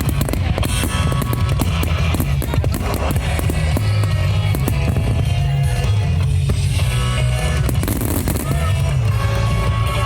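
Music plays while a fireworks display goes off, with many sharp bangs and crackles.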